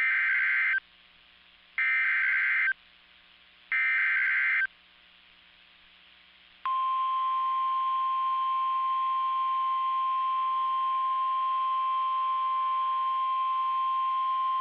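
Emergency Alert System header on NOAA Weather Radio: three one-second bursts of warbling SAME data tones about two seconds apart. About seven seconds in, the long steady single-pitch Weather Radio warning alert tone begins; it marks the start of a severe thunderstorm warning.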